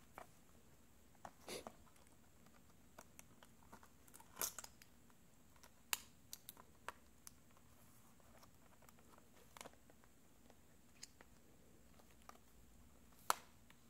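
Faint, scattered clicks and taps of a replacement iPad glass digitizer panel being handled and pressed against the iPad's frame, about a dozen in all, with the sharpest click about 13 seconds in.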